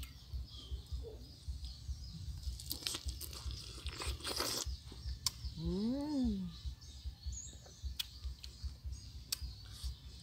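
Close-up chewing and crunching of a fresh strawberry, crisp bites loudest a few seconds in. About six seconds in there is a short hummed "mmm" that rises and falls in pitch.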